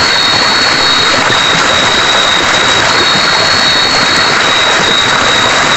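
Steady, loud rushing of a river, with a continuous high-pitched trill of night insects on top.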